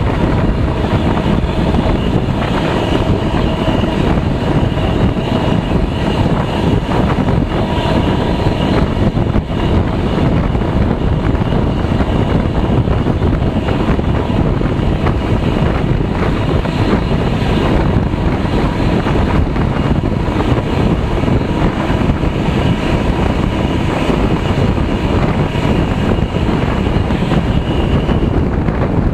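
Steady rumble of a passenger train running on the rails, heard through wind buffeting a microphone held out of the coach window. A faint steady high whine runs under it and fades out near the end.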